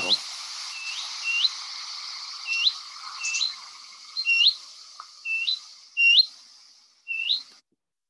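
Willow warbler calling: a short upslurred 'hoo-eet' note repeated about nine times, each sliding up in pitch, over a steady background hiss.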